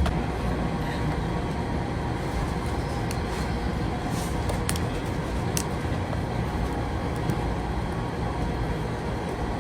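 Steady low rumbling background noise with a few faint ticks and taps.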